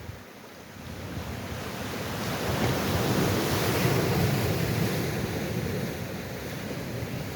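Sea surf: one wave's wash swells up over a couple of seconds, peaks midway and slowly eases off.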